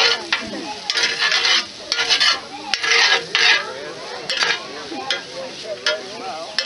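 A metal spoon scraping and stirring sautéing vegetables in a square cast-iron pan over charcoal, in a string of short, repeated strokes, with the vegetables sizzling between them.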